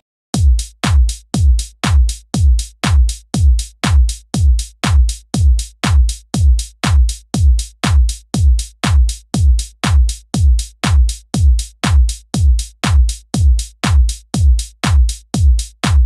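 Electronic background music: a lone drum-machine kick beating steadily about twice a second, each beat a deep thud.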